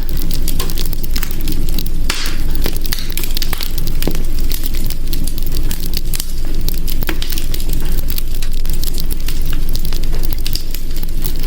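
Fire crackling in a hearth: frequent sharp pops and snaps, irregular and scattered, over a steady low rumble.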